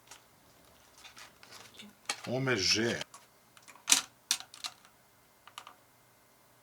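Light clicks and taps of a small boxed PC part's packaging being opened and handled. The loudest click comes about four seconds in, followed by a few quieter ones.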